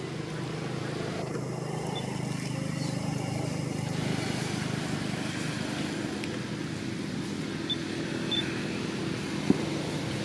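A motor vehicle engine running steadily, a low even hum, with a single short click about nine and a half seconds in.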